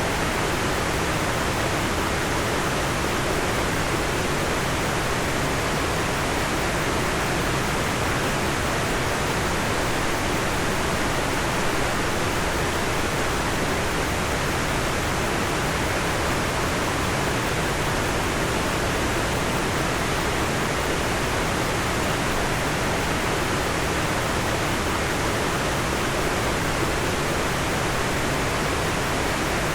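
Steady, unbroken rush of falling water from a large waterfall, the Hirayu Great Falls.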